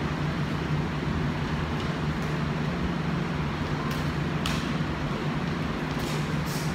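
A steady low machine hum, like a running fan. It is broken by a few short, sharp slaps of hands striking and blocking, twice about four seconds in and twice near the end.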